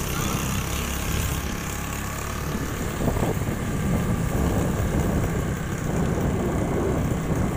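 Motorcycle engine running steadily while riding, with a constant rush of road and wind noise over it.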